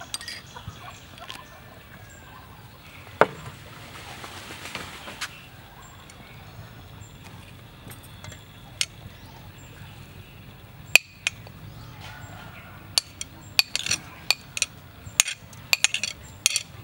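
Metal spoon clinking against a ceramic plate as sliced shallots, ginger and chilies are scraped off it: scattered sharp clinks, a few at first, then a quick run of them in the last few seconds.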